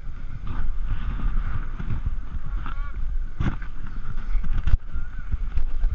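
A short shout from a person at an obstacle, heard over a steady low rumble of movement on a body-worn camera's microphone, with a couple of sharp knocks.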